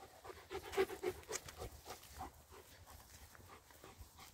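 Shepherd dog panting in quick, short breaths, loudest in the first couple of seconds.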